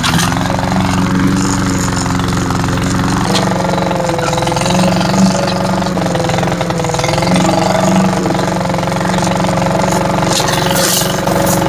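Cub Cadet walk-behind mower's 173cc PowerMore single-cylinder engine running steadily while mowing, its tone changing about three seconds in. The engine runs at a somewhat low RPM, which the owner notes.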